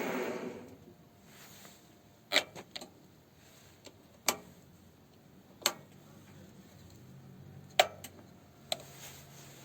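A steady sound fades out in the first second, then scattered sharp metallic clicks and clinks, eight or so, a few ringing briefly, as of metal parts or tools being handled at the lathe.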